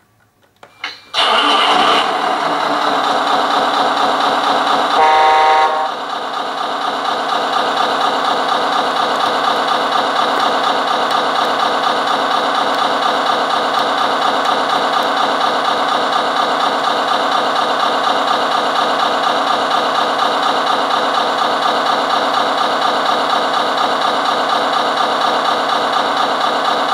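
Sound unit of a Tamiya Scania R620 6x6 RC dump truck playing a simulated truck diesel through its loudspeaker: the engine starts about a second in, a horn blast sounds about five seconds in, and the engine then idles steadily.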